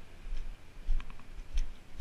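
Footsteps on icy, snow-patched ground: dull thuds with faint crunching clicks, roughly one step every half to two-thirds of a second.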